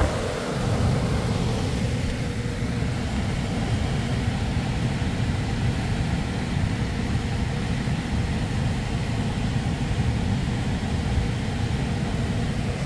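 Furnace blower driven by a newly fitted PSC (permanent split capacitor) motor, which replaced an ECM motor, running steadily on its first test: a constant rush of air with a faint steady hum.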